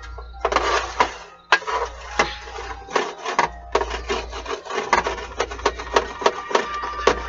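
Wooden spoon scraping and knocking against a metal baking tray while mixing steamed rice with bacon grease: many sharp irregular knocks with rubbing scrapes between them.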